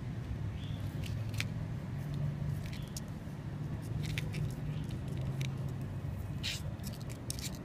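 A low, steady motor hum in the background, with scattered faint light clicks and ticks from hands handling nylon fishing line.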